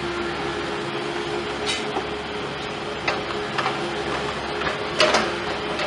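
Heavy machinery, likely an excavator, running steadily with a constant hum, with scattered sharp metallic knocks and clanks; the loudest pair comes about five seconds in.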